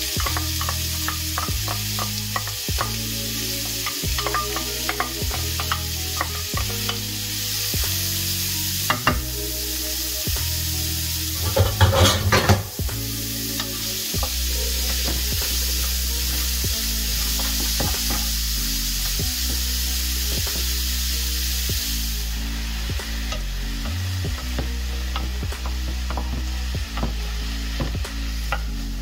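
Diced onion sizzling in hot fat in a frying pan, stirred and scraped with a wooden spatula, with a burst of louder scraping and knocking about twelve seconds in. The sizzle eases off about three quarters of the way through. Background music with a bass line runs underneath.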